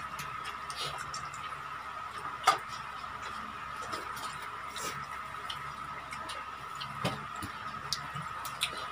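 Eating sounds: scattered small clicks and wet smacks of chewing and of hands tearing fried chicken and picking up rice, with one sharper click about two and a half seconds in. A faint steady high-pitched hum runs underneath.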